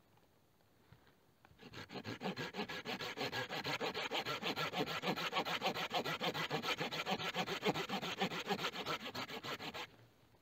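Hand saw cutting through a wooden pole in fast, even back-and-forth strokes, starting about a second and a half in and stopping suddenly near the end.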